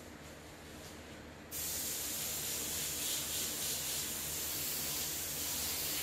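SATA Mini Jet spray gun triggered about a second and a half in, giving a steady hiss of compressed air as black paint is sprayed low and straight across a panel beaded with water drops.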